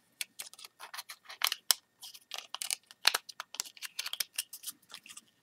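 Small plastic webcam housing and circuit board handled close up: irregular clicks, taps and scraping as the board and its wire are tucked back into the shell. The loudest clicks come about a second and a half in and about three seconds in.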